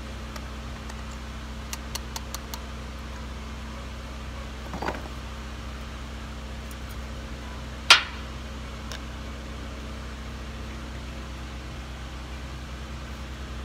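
Steady low machine hum, with a few light clicks and scrapes and one sharp tap about halfway through as a MIG welding gun's nozzle is cleaned of spatter.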